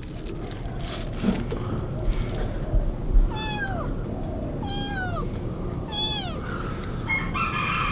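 Young kitten meowing three times, each a short high call that falls in pitch.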